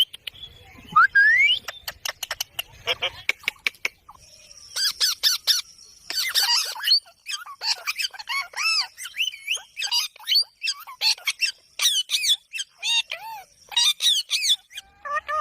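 Ringneck parrot giving a rapid series of short, sharp squawks and chirps, with a run of dry clicks about two to four seconds in.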